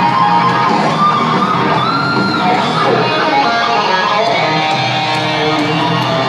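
Guitar music playing loudly from a Honda GL1800 Gold Wing's built-in audio system. It is played from the CD player, so the signal runs through the bike's rear amplifier.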